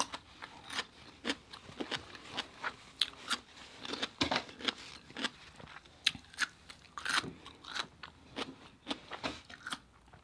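Close-miked chewing of food: a rapid, irregular series of wet crunches and mouth clicks, several a second.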